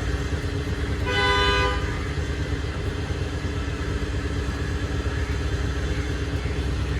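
A vehicle horn sounds once, briefly, about a second in, over a steady low motor drone.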